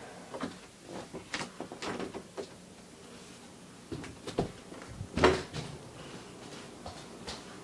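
A string of light knocks and bumps, a few a second at first, with the loudest clunk about five seconds in.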